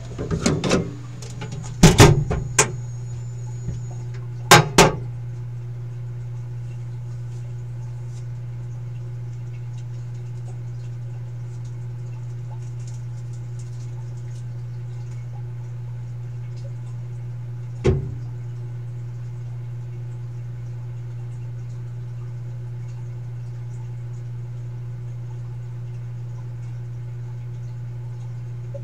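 K40 laser cutter running with a steady low hum. Several sharp knocks and clatters come in the first few seconds, and one more knock about eighteen seconds in.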